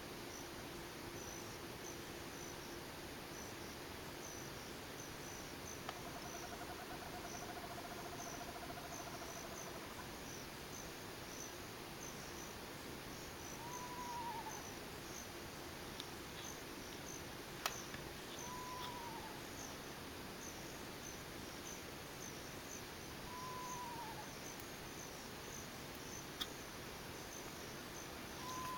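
Night insects chirping steadily and rapidly, with an unidentified animal giving short whistled calls, each rising then falling, about every five seconds through the second half; earlier a longer wavering whistle.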